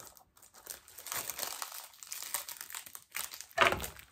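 Plastic shrink-wrap crinkling and tearing as it is peeled off a Blu-ray case, in irregular crackles with a louder one about three and a half seconds in.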